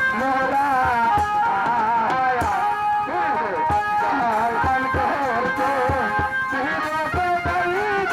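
Live Bengali folk song through a microphone: a man's voice carries a wavering melody over a drum kit beating steadily, with a string instrument in the accompaniment.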